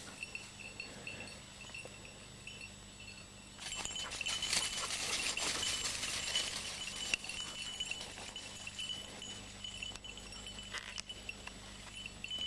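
A small bell on a hunting dog's collar tinkling as the dog works through brush. From about 4 to 7 s it is joined by louder rustling of dry scrub and leaves.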